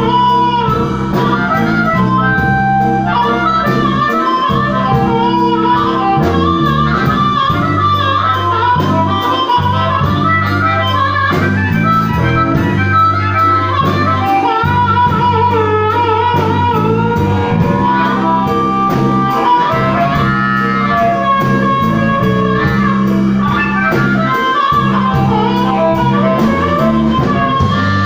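Blues band playing an instrumental break between sung verses: a bending lead melody over sustained bass notes and a steady beat.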